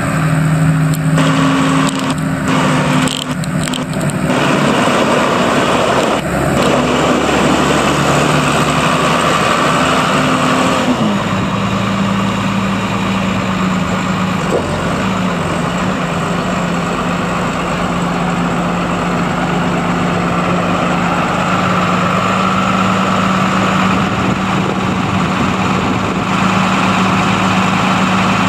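2004 Case IH MXM155 Maxxum tractor's 153 hp CNH diesel engine running as the tractor drives. About eleven seconds in, its note drops to a lower, steady speed that holds.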